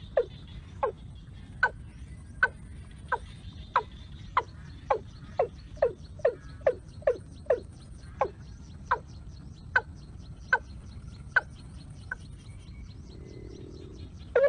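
A bird calls over and over in short, sharply falling notes, about one or two a second, the notes spacing out a little towards the end. This is the lure call used to draw birds to a noose trap.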